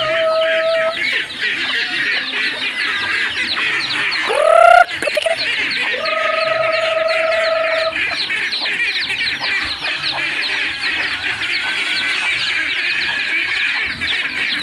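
A flock of chickens clucking continuously, with a rooster crowing over them: a short call at the start, a rising, loud one about four seconds in, and a long held one near the middle.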